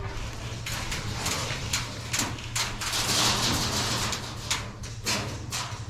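Irregular sharp clicks and cracks of airsoft fire, with BBs striking surfaces nearby, over a steady low hum.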